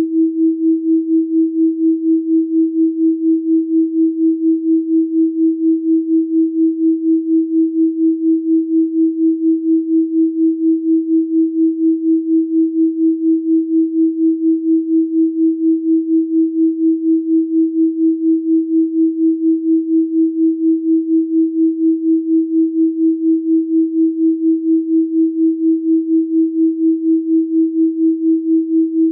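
Electronically generated 324 Hz sine tone held steady, pulsing in loudness about three times a second.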